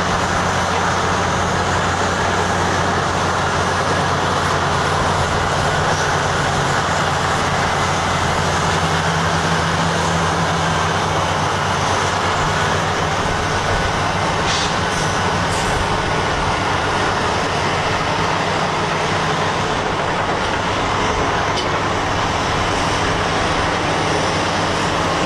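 Heavy diesel engines of Cat 657 wheel tractor-scrapers running steadily, a constant low engine note under a broad mechanical noise.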